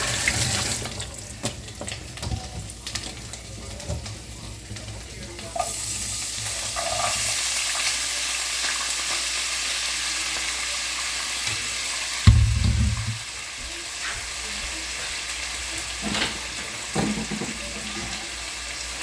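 Food frying in a hot pan with a steady sizzle. The sizzle jumps up suddenly about five and a half seconds in and drops after a loud thump about twelve seconds in.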